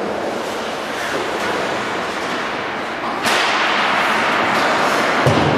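Ice hockey play: skate blades scraping the ice and sticks clacking, growing suddenly louder about three seconds in, with a low thud near the end.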